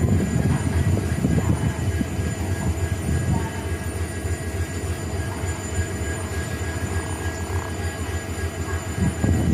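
Twin WDG4 (EMD GT46MAC) diesel-electric locomotives' two-stroke V16 EMD 710 engines running, a steady low rumble with a faint steady high hum over it.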